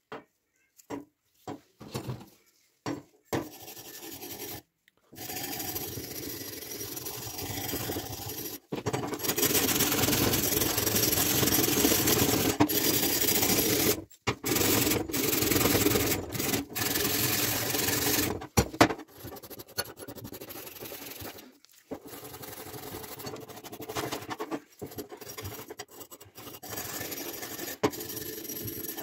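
Wire brush scrubbing rust off a heavily rusted steel cleaver blade, in long runs of scratchy rubbing broken by short pauses, loudest around the middle. A few short knocks from handling the cleaver come first.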